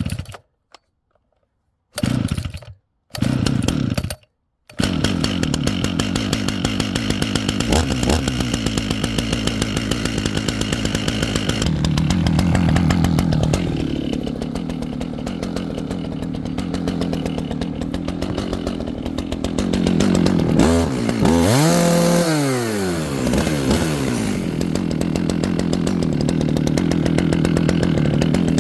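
Dolmar two-stroke chainsaw being started: it fires in short bursts a few times, then catches about five seconds in and runs steadily. Around twenty-one seconds in the revs drop and climb back up.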